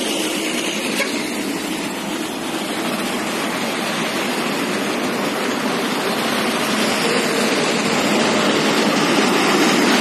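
Steady rushing road-traffic noise, growing a little louder in the second half.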